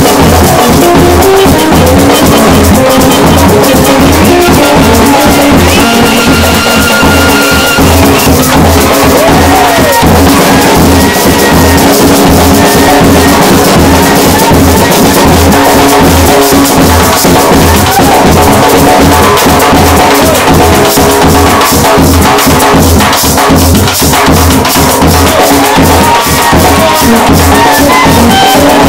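Loud dance music with a steady, even beat: a large bass drum, a snare drum and a cowbell played live, with a melody over them.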